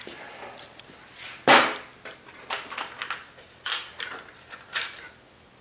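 Steel parts and tools being handled and set down on a steel cart and worktable: a series of sharp clanks and clicks, the loudest about a second and a half in.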